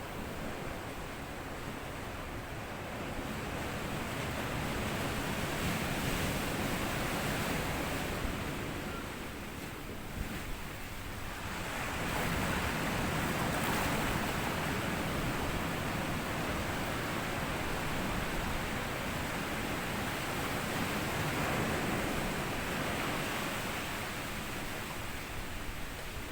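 Small sea waves washing up onto a sandy beach and drawing back, a steady surf hiss that swells and eases in slow surges, dipping briefly about ten seconds in before building again.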